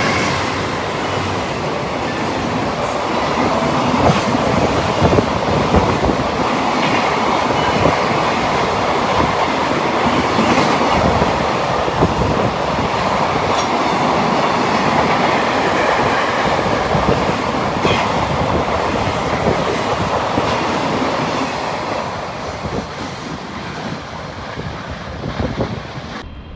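Long container freight train behind an EF210 electric locomotive running through a station at speed: a steady rumble of wagons with clickety-clack from the wheels over rail joints. The noise is loudest as the locomotive passes at the start and fades over the last few seconds as the tail of the train goes by.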